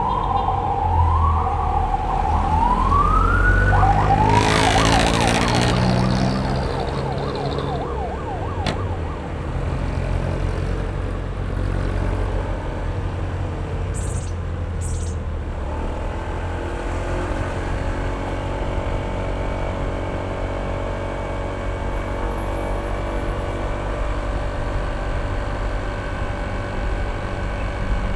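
A siren wailing in quick rising sweeps for the first few seconds, over the steady running of a Honda ADV160's single-cylinder scooter engine with road and wind noise. A brief rush of noise follows, then the engine, road and wind noise carry on steadily.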